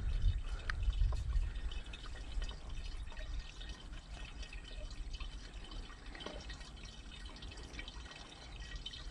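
Diesel pouring from a plastic jug into the funnel of a tractor's auxiliary fuel tank, a steady trickle. A low rumble at the start fades out within about two seconds.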